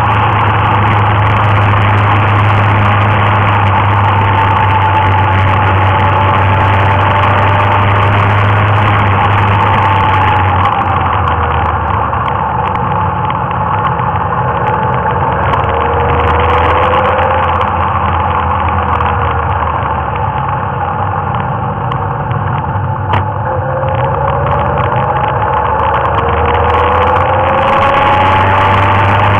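Motorcycle engine running while riding, with wind rushing past the microphone. The engine note rises and falls with the throttle: it eases off about a third of the way through and picks up again near the end.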